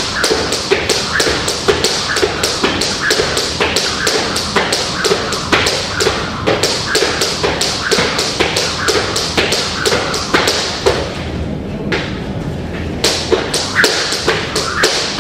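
A fast, even run of taps, about three a second, that thins out to scattered taps in the last few seconds.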